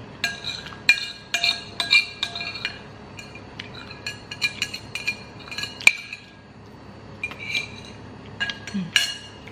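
Metal spoon and chopsticks clinking against a ceramic bowl in quick, ringing clinks while the last of the noodles and sauce are scooped up. The clinks come thick in the first six seconds, with a few more near the end.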